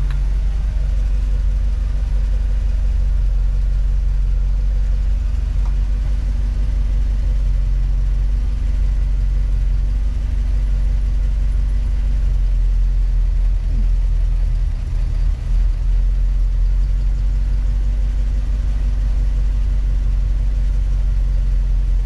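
International Scout engine idling steadily at about 750 rpm, fully warmed up, heard from inside the cab.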